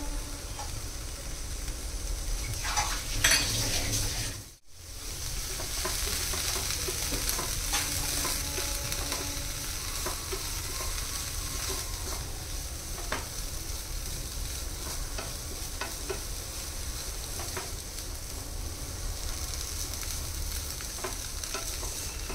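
Grated vegetables and drumstick leaves sizzling in a nonstick frying pan as a wooden spatula stirs and scrapes them, with small scraping and tapping strokes throughout. The sound cuts out for a moment about four and a half seconds in.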